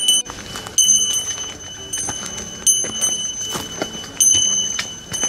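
A small bear bell carried by a walking hiker, jingling with each stride: a clear, high ring that sounds again in repeated bursts about once a second. Footsteps on a dry, leaf-covered dirt trail come in between the rings.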